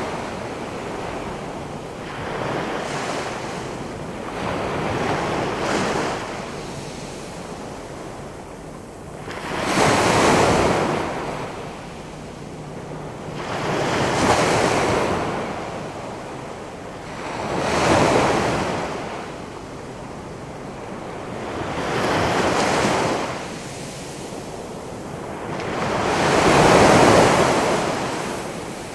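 Big ocean waves rolling in and crashing, each break a swelling rush of surf that rises and dies away. Smaller surges come in the first few seconds, then large crashes about every four seconds.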